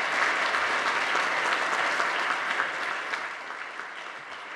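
Audience applauding, a dense patter of many hands clapping that begins to die down about three seconds in.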